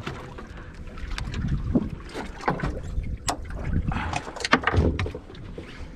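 Wind buffeting the microphone and water slapping against the hull of a drifting fishing boat, with scattered sharp clicks and knocks.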